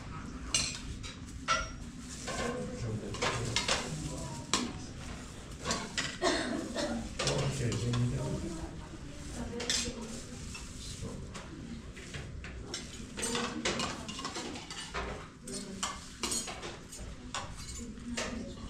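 Dishes and cutlery clinking and knocking together in many short, irregular strokes.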